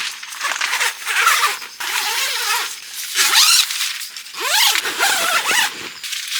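Tent being handled: nylon fabric rustling and scraping, with several short squeaks that glide up and down in pitch.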